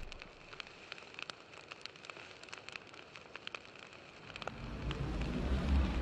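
Fire crackling sound effect: a soft hiss with scattered sharp crackles, and a low rumble building over the last second and a half.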